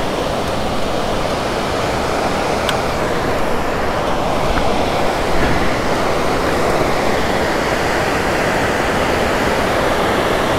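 Steady rush of a monsoon-swollen river in flood, flowing fast.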